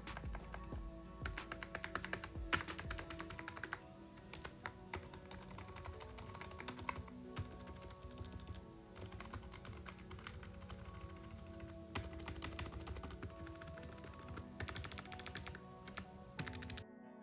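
Fast, irregular typing on a budget membrane-switch gaming keyboard, a dense run of soft key clicks over background music. The sound cuts off abruptly near the end.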